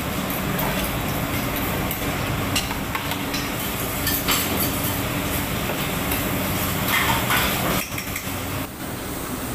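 Steady mechanical hum and rush of commercial kitchen equipment running, with a few light clinks of a spoon and dishes.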